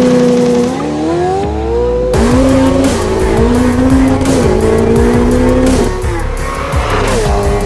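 Ferrari 488 Pista's twin-turbo V8, through a Novitec race exhaust without catalytic converters, running loud at high revs: the pitch holds, climbs, then drops sharply about two seconds in and climbs again.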